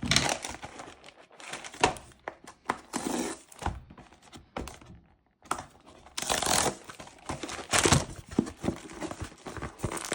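Plastic shrink-wrap being torn and crinkled off a sealed card booster box, in irregular bursts with a few sharp taps and a short pause around the middle.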